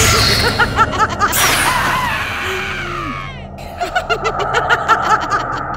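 A cartoon witch's cackling laugh: quick runs of "ha" syllables, heard twice with a short pause between.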